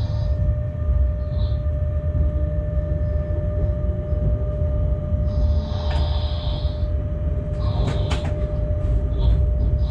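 Locomotive running slowly, heard from inside the cab: a steady low rumble with a constant hum. Wheels knock over the points about six seconds in and again near eight seconds, each time with a brief high hiss.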